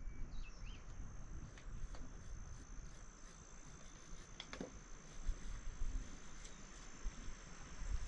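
Insects trilling: one steady high-pitched tone over a low rumble. A couple of faint bird chirps come near the start, and a single sharp click about four and a half seconds in.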